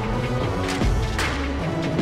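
Background music with held tones and a few sharp hits.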